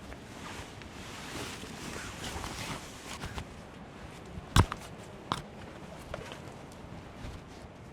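Rustling and shuffling of someone moving about at camp, with one sharp knock about four and a half seconds in and a smaller one shortly after.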